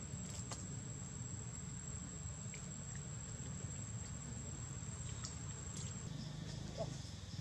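An insect calling with one steady high, thin tone that stops about six seconds in, over a low steady hum, with a few faint clicks scattered through.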